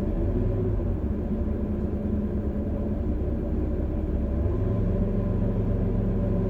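Toyota HiAce KDH200 van on the move with a steady low droning rumble, a 'gō' like a nearby aircraft, coming from the rear of the van; the mechanic takes it for worn bearings in the differential, though too much gear backlash gives the same noise.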